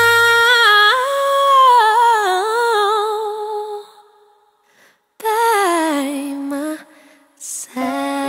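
A woman's voice singing long, wavering notes with no clear words, fading out about four seconds in. After a short silence a second sung phrase slides down in pitch, and soft music with steady held notes starts near the end.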